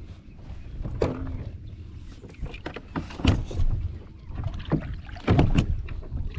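Several knocks and clunks on a kayak, over a low steady rumble.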